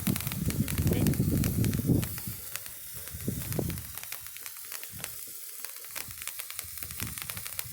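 Handheld Patriot Stick sparkler firework burning, spitting out a shower of sparks with a fast, dense sizzling crackle like bacon frying. A low rumble sits under it for the first two seconds.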